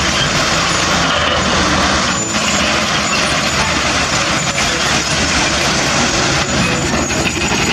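A diesel dump truck's engine runs steadily while its raised bed tips a load of earth and rocks out the back, with a constant rushing noise over the low engine hum.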